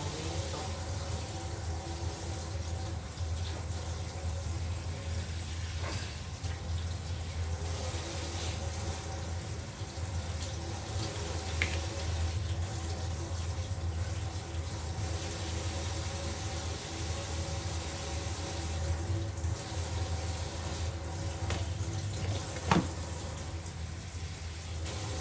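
Water running steadily from a kitchen tap into a sink, under a low steady hum, with one sharp click near the end.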